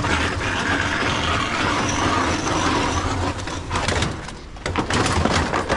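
Scrap being handled onto a junk-laden trailer: scuffing and rustling, then a quick run of metal clanks and rattles starting just under four seconds in, over a steady low engine hum from the truck.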